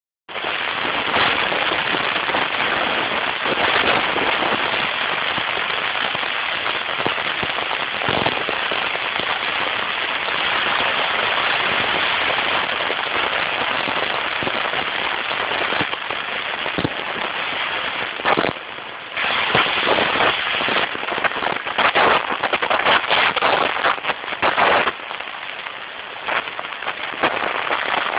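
Wind rushing over the microphone of an open coffin-bodied hot rod driving fast: a steady hiss that turns choppy and crackling about two-thirds of the way through.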